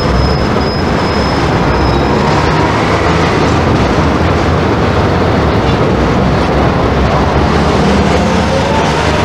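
Hong Kong electric tram running, its steady rumble heard from inside the passenger car, with a thin high whine over the first two seconds.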